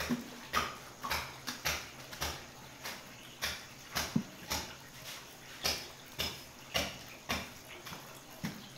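Butcher's knife cutting through beef, a quick irregular series of short scraping strokes about two a second.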